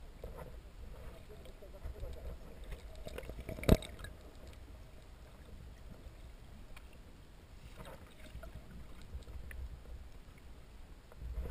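Muffled underwater sound heard through a camera in the water: a steady low rumble of moving water, with one sharp knock a little under four seconds in.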